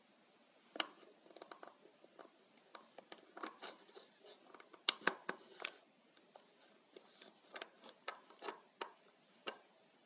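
Irregular light taps and ticks of rain and wet snow drops striking a window pane, with a quick cluster of louder taps about halfway through.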